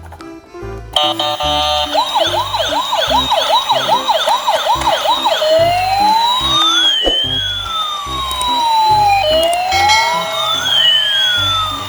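An emergency-vehicle siren starts about a second in with a fast yelp that rises and falls about two and a half times a second. About five seconds in it changes to a slow wail that rises and falls twice, each sweep taking about two seconds. Background music with a steady bass line runs underneath.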